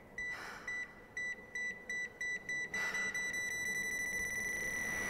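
Heart-rate monitor beeping, the beeps coming faster and faster until they run into one long flatline tone about three seconds in, with a rush of noise under it: the sound of a heart stopping.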